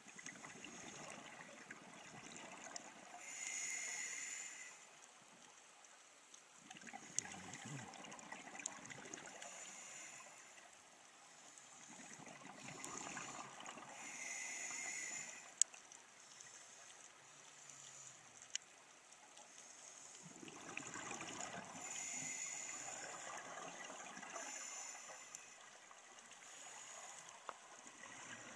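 Scuba regulator breathing heard underwater: a hiss on each inhale and a rush of bubbles on each exhale, several breaths a few seconds apart, with a few small clicks.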